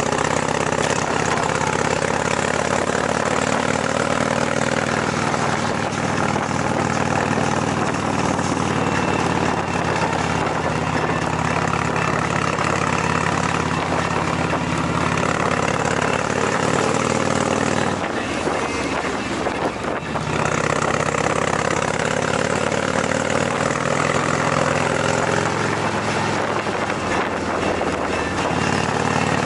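Motorcycle engine running under way on a ride, its note rising and falling with the throttle, over steady wind noise. The engine note drops away briefly about two-thirds of the way through, then picks up again.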